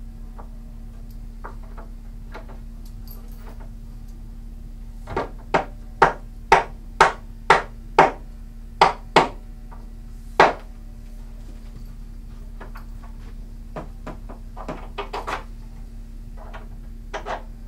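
Mallet blows on a wooden bed frame: a run of about ten sharp knocks, roughly two a second, followed by a few lighter knocks and clunks near the end.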